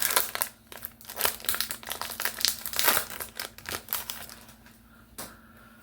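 Plastic wrapper of a Pokémon TCG mini booster pack crinkling and tearing as it is opened by hand, in quick irregular crackles that die down about five seconds in.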